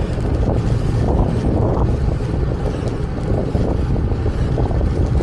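Strong gusty wind buffeting the microphone of a moving bicycle, a loud steady low rumble.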